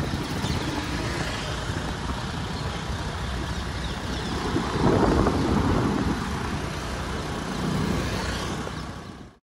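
Road traffic noise heard from a car driving through city streets: a steady rumble of engine and tyre noise that swells louder about five seconds in and again near eight seconds, then fades out quickly near the end.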